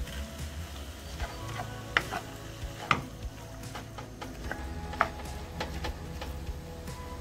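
Wooden spatula stirring and scraping beef mince and diced onion frying in a pan, with several sharp knocks against the pan, the loudest about two, three and five seconds in.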